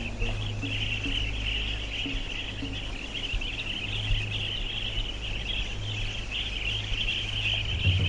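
A dense, steady chorus of high-pitched chirping from many animals at once, over a low steady hum, with a few faint soft music notes in the first few seconds.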